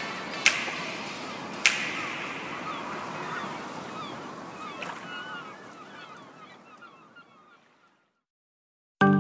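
Background music fading out at the end of a track: two sharp hits early on, then a ringing wash with small chirping glides that dies away to silence. Near the end a new track starts abruptly with a run of plucked notes.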